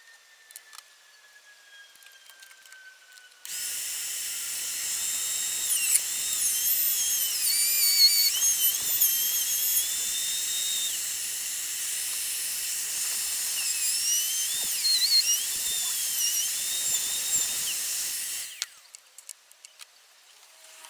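A power tool and its dust-extraction vacuum start together about three seconds in and run for about fifteen seconds: a loud, high, hissing whine with a steady tone under it and a pitch that wavers up and down. Then they cut off suddenly. A faint falling whine is heard before they start.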